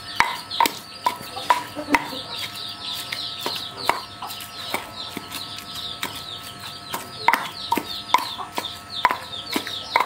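Wooden pestle pounding fish paste in a stone mortar: dull knocks, one to two a second and uneven, with a pause about halfway through. Behind them, chicks peep continuously in short, high, falling chirps.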